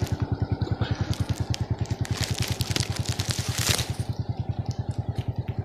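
Small engine running steadily with an even beat of about ten pulses a second. Scattered brief rustling and crackling on top, loudest just before the four-second mark.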